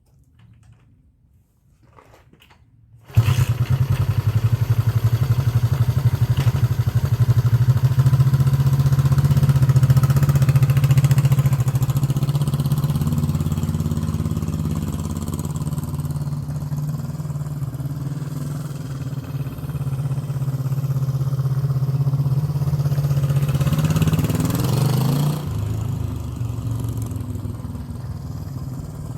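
1972 Honda CB350 parallel-twin engine, freshly tuned with rebuilt carburettors, new points and new coils, starting suddenly about three seconds in and then running steadily. Near the end it revs up and drops back.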